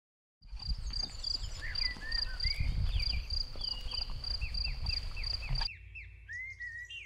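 Birds chirping over a steady low rumble, starting about half a second in: repeated falling chirps under a high, evenly pulsing note. Near the end the sound cuts abruptly to quieter, sparser birdsong.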